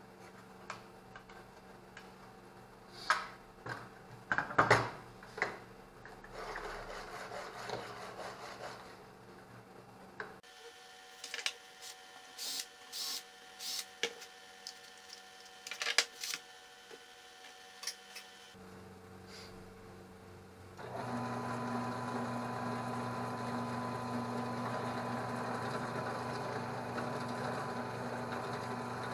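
Wood and aluminium parts knocked and handled on a workbench, the sharpest knocks the loudest sounds, then short separate bursts of a cordless drill driving into a plywood block. In the last third a benchtop drill press motor runs steadily.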